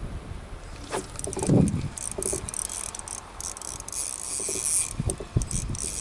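Spinning reel being cranked in short spurts of high rattling while a hooked bass bends the rod. A heavy thump comes about a second and a half in.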